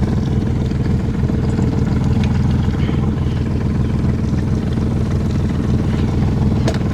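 Outboard motor of a small boat running steadily, a low, even engine note.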